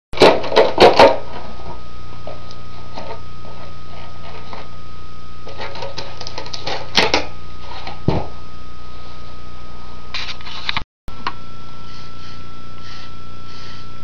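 Sharp mechanical clicks and taps, four loud ones in quick succession at the start and scattered fainter ones after, over a steady hum with a thin high whine.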